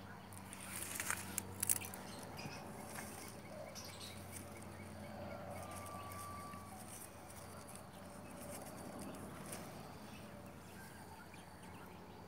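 Quiet garden ambience: a few soft rustles and clicks from about a second in as seed pods are picked from a bleeding-heart vine (Clerodendrum thomsoniae), with a faint bird call near the middle.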